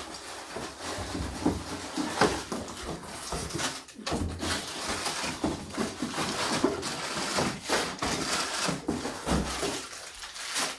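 Plastic food packets and cardboard boxes rustling and knocking as they are handled and set down on a floor, in a run of uneven crinkles and light bumps.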